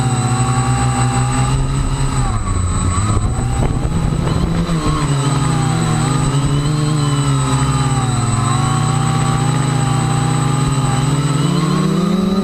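Electric motors and propellers of a small radio-controlled multirotor drone whining in flight. The pitch wavers up and down as the motor speed keeps changing against high wind, with a rougher, gustier stretch about two seconds in and a rise in pitch near the end.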